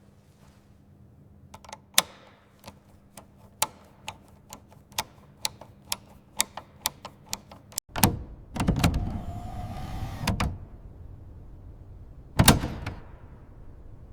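Workshop tool work: a run of sharp, irregular clicks about two a second, then a couple of seconds of scraping noise with a faint whine, and one loud knock near the end.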